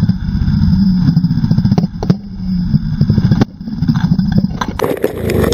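Honda CRF230's single-cylinder four-stroke dirt-bike engine running hard under throttle, cut off briefly about three and a half seconds in, then picking up again. Near the end a rush of noise with clattering knocks as the bike runs off the trail and crashes.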